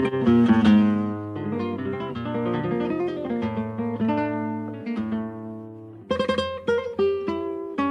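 Acoustic guitar music: plucked notes that ring and fade, growing softer until about six seconds in, then a quick run of sharp strummed chords.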